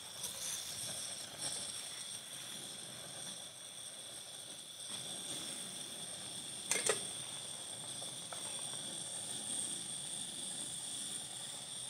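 Steady hiss of an LPG gas burner running under an empty steel karahi as the pan heats. A short, sharp chirp that falls in pitch comes about seven seconds in.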